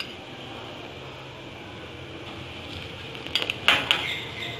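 A spoon clinking and clattering against dishes in two short bursts about three and a half seconds in, after a few seconds of quiet room tone.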